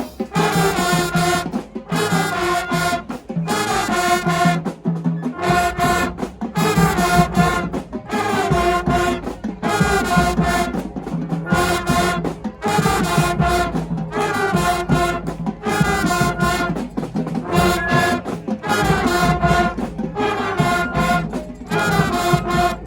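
High school marching band playing, the brass section carrying the tune in phrases of held notes broken by short gaps.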